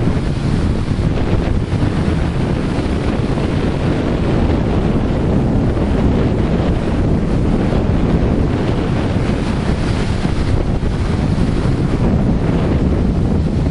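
Flash-flood water rushing and churning down a concrete flood channel, a steady loud rush, with wind buffeting the microphone.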